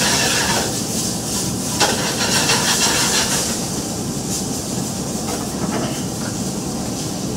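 Vegetables with garlic and onion sizzling and steaming in a sauté pan where a little water has been added, a steady hiss that is strongest for the first few seconds and then eases. A single light knock of the utensil on the pan comes about two seconds in.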